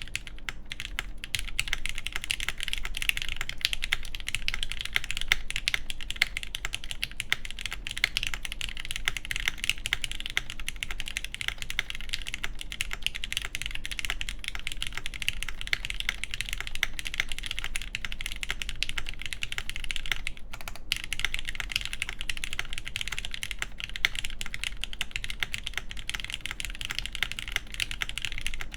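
Fast, continuous typing on a custom mechanical keyboard with lubed milky-housing Gateron Yellow linear switches, an aluminium half plate and GMK ABS keycaps. It is a dense stream of keystrokes, with a brief pause about two-thirds of the way through.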